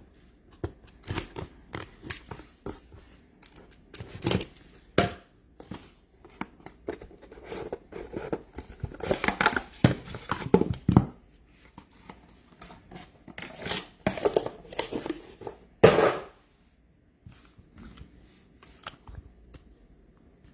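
Sealed trading-card boxes being opened by hand: irregular tearing of shrink wrap and cardboard and crinkling of plastic wrapping, with the loudest tears around the middle and a sharp rip about three quarters in, then only light handling.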